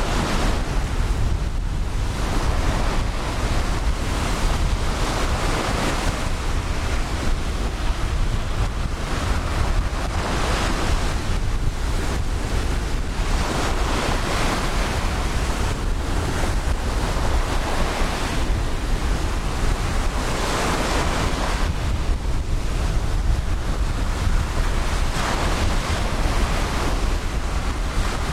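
Ocean surf breaking and washing up the beach, swelling every few seconds, with wind rumbling on the microphone.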